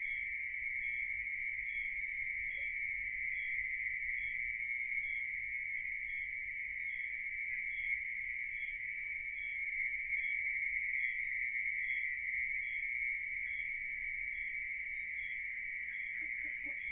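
Night insects, crickets, trilling steadily in one continuous high-pitched chorus, with a fainter higher chirp repeating about two to three times a second.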